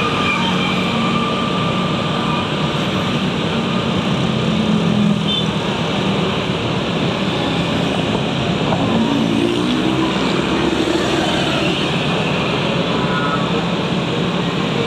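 Steady rush of wind and road noise with engine hum from a vehicle riding along a road among motorcycles. An engine's pitch climbs briefly about nine seconds in.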